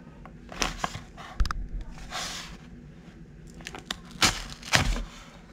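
Taped brown paper mailer being handled and slit open along its top with a blade. Paper and tape crinkle and tear, with a rasping stretch about two seconds in and several sharp clicks and knocks.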